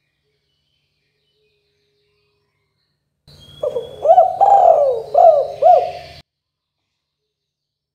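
Spotted dove (tekukur) cooing: one phrase of several bending coo notes lasting about three seconds, starting about three seconds in, with silence around it.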